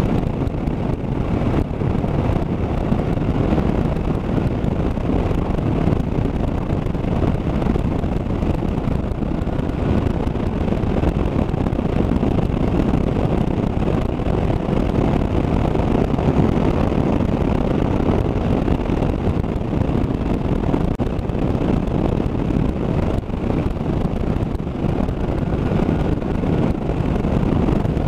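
Motorcycle riding at a steady cruising speed, heard from a helmet-mounted camera: wind rushing over the microphone, with engine and road noise beneath it.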